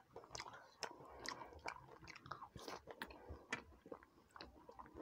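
Quiet chewing and wet mouth clicks of a person eating, picked up close on a clip-on microphone, with many small irregular smacks.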